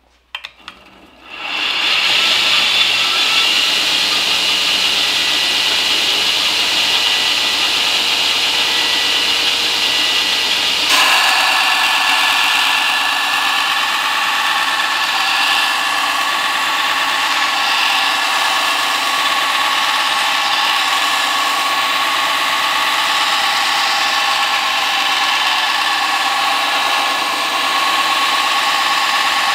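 Belt grinder running a coarse 36-grit belt, grinding a steel knife blank to hog off material while profiling the blade. It is a loud, steady grinding hiss with a whine, coming in about a second in, and its pitch shifts abruptly about eleven seconds in.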